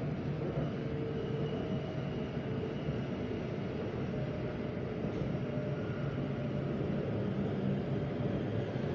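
MRT Blue Line metro train running between stations, heard from inside the car: a steady rumble of the train on the track, with faint humming tones over it.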